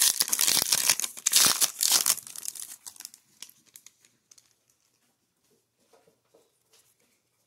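Foil wrapper of a hockey card pack being torn open and crinkled, crackly and loud for about two seconds, then dying away to faint soft rustles as the cards are handled.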